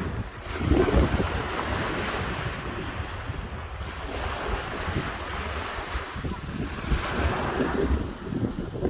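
Sea waves breaking and washing on a beach, swelling louder about a second in and again near the end, with wind buffeting the microphone.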